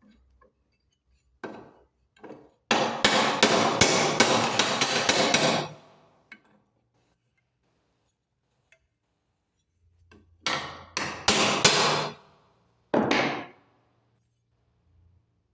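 Hammer blows knocking the worn ball bearing out of an Electrolux washing machine's drum-shaft bearing housing: a single blow, then a fast run of blows for about three seconds, and after a pause a few more blows and a last one.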